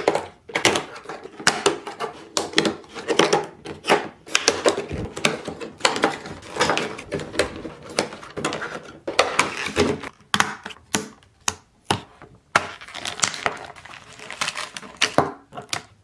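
Doll packaging being opened by hand: cardboard box and clear plastic tray and blister insert handled and pulled apart, giving irregular crackles, clicks and rustles with short pauses.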